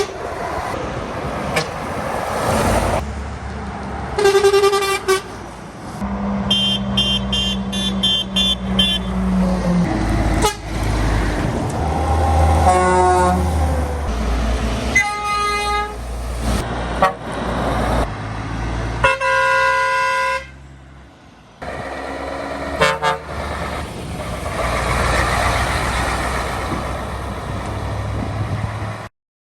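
Truck horns sounding in a series of separate blasts of different pitches, some brief toots and one held for about three seconds, over engine and traffic rumble. The sound cuts off abruptly near the end.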